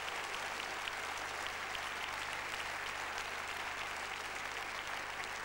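Large audience applauding, a steady, even clapping.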